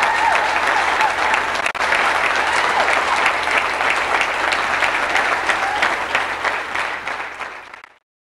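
Wedding guests applauding, a dense steady patter of many hands clapping that fades out near the end.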